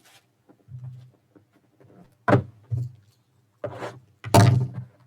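Card sleeves and a trading-card box being handled on a table: a few short scrapes and knocks, the loudest and longest one near the end.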